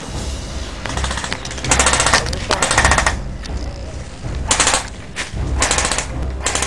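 Airsoft guns firing on full auto in several bursts of rapid clicks: one long burst of over a second, then three short ones. A low rumble runs underneath.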